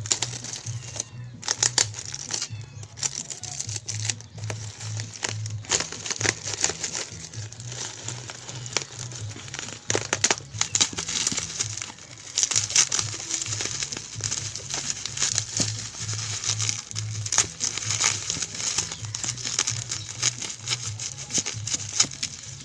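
Irregular crinkling and sharp clicks, as of things being handled, over a low steady hum.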